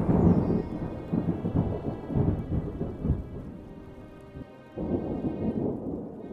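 Thunder sound effect: a low rumble with a rain-like hiss that fades off, then swells into a second rumble about five seconds in.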